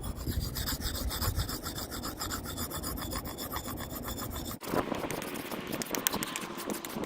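Steel hatchet blade being stroked back and forth on a sharpening stone greased with bacon fat, a fast, even rasping rhythm. The sound changes abruptly about two-thirds of the way through.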